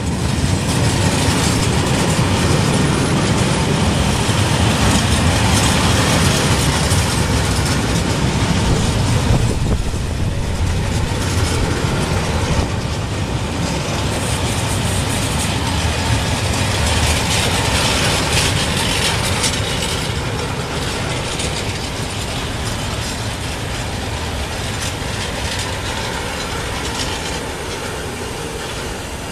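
Freight train of empty stanchion flat wagons rolling past at close range: a steady rumble of steel wheels on rail with clicking and clacking over the joints, easing off gradually over the last several seconds.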